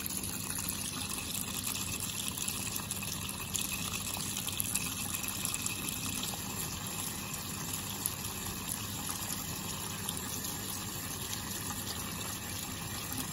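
Tap water running steadily from a faucet into a sink basin.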